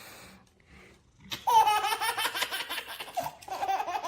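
A baby laughing in high-pitched squeals, in a long bout about a second and a half in and a shorter one near the end.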